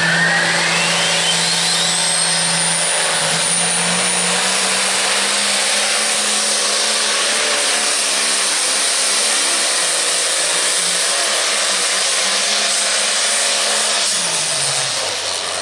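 A limited pro stock pulling tractor's 640-cubic-inch turbocharged diesel, under an International MX190 hood, running flat out on a pull, with a whine rising steeply in pitch over the first few seconds. Near the end the engine note drops as it comes off the throttle.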